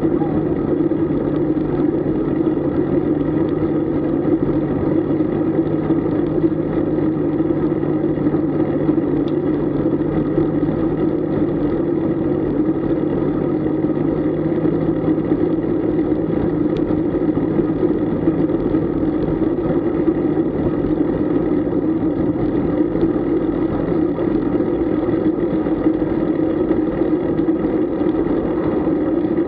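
Steady rumble of wind and road noise on the microphone of a camera riding along on a road bike, unbroken and at a constant level.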